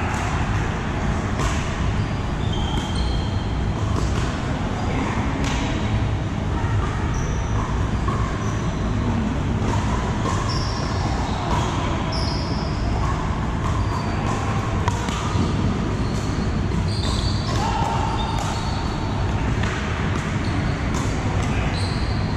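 Pickleball paddles striking hard plastic balls on many courts at once, a scatter of sharp pocks ringing around a large indoor arena, with brief sneaker squeaks on the hard floor. A steady low rumble and faint chatter run underneath.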